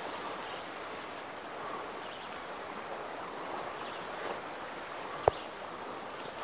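Steady rushing of river water, with a single sharp click about five seconds in.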